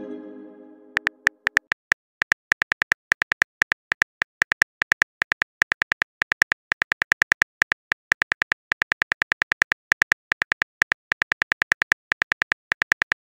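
Simulated phone-keyboard typing clicks from a texting-story chat app: a rapid, steady run of short clicks, several a second, as a long message is typed letter by letter. At the very start the tail of a message chime fades out before the clicking begins about a second in.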